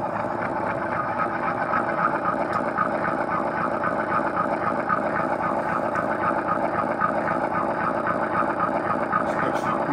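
Large-scale 3D-printed Class 34GE model diesel locomotive running steadily while it pulls against a drawbar-pull scale on a dyno test, its drive under load. A faint pulsing runs through it about three times a second.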